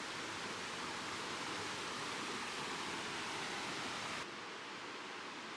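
Steady rushing of flowing water from a mountain stream or waterfall. About four seconds in it drops abruptly to a quieter, duller hiss.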